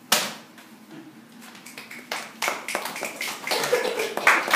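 Small audience clapping, starting scattered about a second and a half in and building into steadier, louder applause toward the end. One sharp thump comes right at the start.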